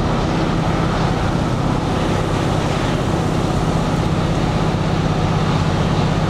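Tour bus driving at a steady speed, heard from inside the cabin: a constant low engine hum under even road and tyre noise.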